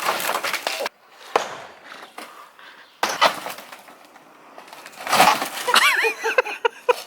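Wooden shed boards cracking and splintering as they are torn down, with several separate sharp knocks. A child's high voice comes in near the end.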